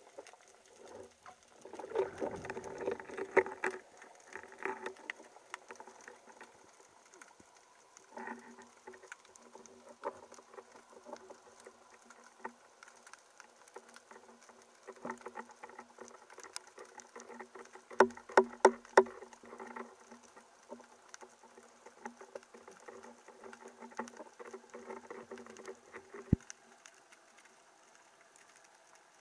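Underwater sound heard through the housing of a camera mounted on a speargun: a constant crackle of small clicks, with clusters of louder knocks about two to five seconds in and again around eighteen seconds. A low steady hum runs under it and stops with a sharp click near the end.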